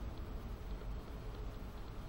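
A steady low rumble, like wind on the microphone, with a few faint crackles from a small wood fire burning in a Firebox hobo stove.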